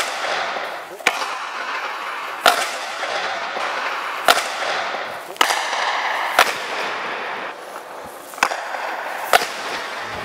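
Hockey stick blade hitting a puck on the ice: about eight sharp cracks, one every second or two, as pucks are received and shot, with a steady scraping hiss of skates and puck on the ice between them, ringing in an indoor rink.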